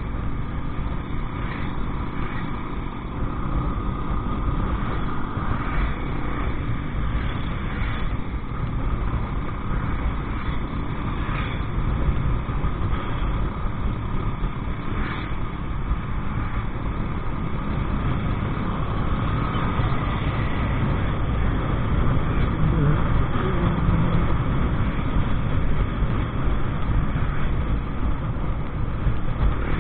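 A motorcycle riding along at steady road speed: a dense wind and road rumble on the microphone, with the engine running underneath. The sound grows a little louder about two-thirds of the way through.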